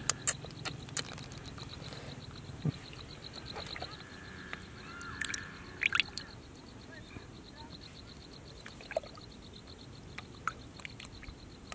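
Muddy water dripping and splashing into a small water-filled hole in wet mud, with sharp wet splats and clicks. A fast, even pulsing animal call runs steadily behind it.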